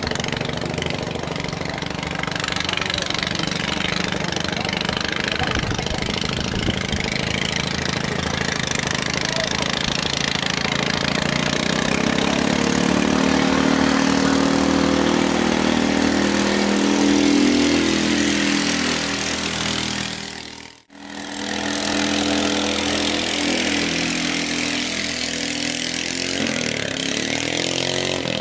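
Longtail racing boat's 13.5 HP (405 cc) engine, run on LPG through a converter kit, running at speed. It grows louder as the boat approaches and cuts out for a moment about two-thirds of the way through. Its pitch shifts near the end as the boat passes close.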